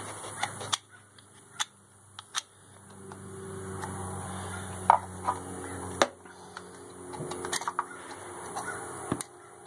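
Old knife scraping old gasket material off a metal thermostat housing cover: irregular scrapes with sharp clicks and taps of the blade on the metal.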